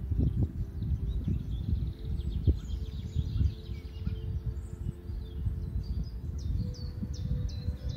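Wind buffeting the microphone in uneven gusts, with small birds chirping and singing in the background.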